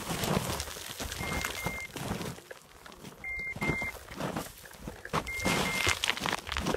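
Footsteps crunching and rustling through dry grass and thin snow, over a low rumble of wind on the microphone. A high electronic double beep repeats about every two seconds, three times.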